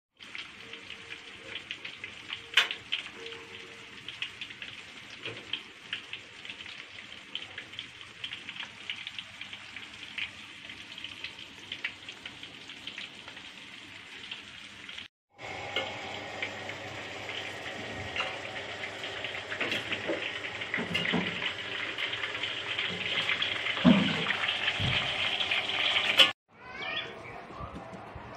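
Chicken frying in hot oil, a steady sizzle with many small crackles and pops. It cuts off abruptly about halfway through and returns louder, then stops again near the end, where short bird chirps are heard.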